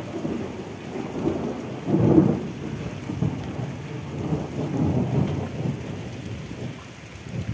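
Rain falling over a street, with a low, uneven rumbling that swells and fades, loudest about two seconds in.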